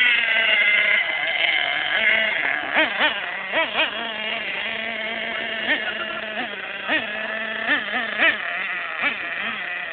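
Small high-revving engine buzzing steadily, its pitch blipping up and down many times as the throttle is worked.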